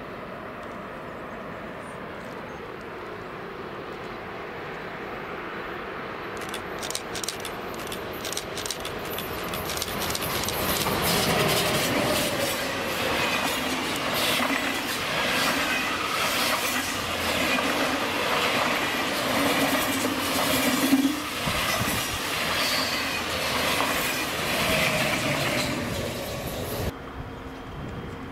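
An ICE high-speed electric train approaches and passes close by at speed, growing louder from about six seconds in, with a quick run of clicks from the wheels over the rails as it nears, then a loud rush and rumble as the coaches go by. The sound cuts off abruptly about a second before the end.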